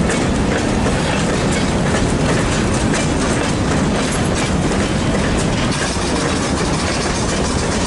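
Freight train's open-top hopper cars rolling past close by: steel wheels clicking over rail joints over a steady rumble.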